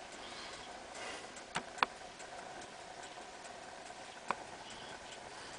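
Mechanical clocks ticking faintly and steadily in a clock repair workshop. Three sharper clicks stand out, two close together about a second and a half in and one near four seconds.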